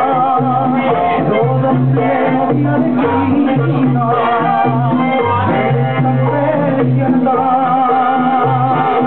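Latin dance music in a salsa style played loud from a DJ's console, with a wavering melody line over a repeating bass pattern.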